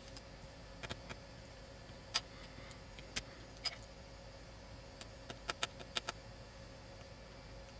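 Scattered light clicks and taps of small hand tools against an iPad's glass and frame, about a dozen, with the sharpest about two seconds in and a quick cluster around five to six seconds.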